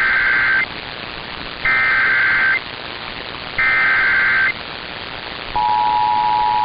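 Emergency Alert System SAME header: three short bursts of warbling digital data tones, each just under a second long with about a second's gap, then the steady two-tone EAS attention signal starts near the end. This marks the start of an EAS activation. All of it sits over a steady hiss.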